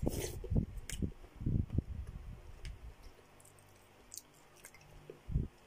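Close-miked eating of chicken and cabbage soup: a quick slurp from a metal spoon, then about two seconds of chewing and wet mouth sounds. A few light clicks of the spoon in the bowl follow, and one more mouthful near the end.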